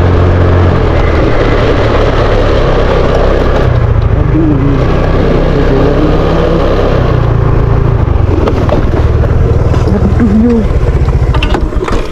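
Motor scooter being ridden: its engine runs with the pitch shifting as the throttle changes, under heavy wind rush on the microphone. The sound breaks up and eases off near the end as the scooter slows.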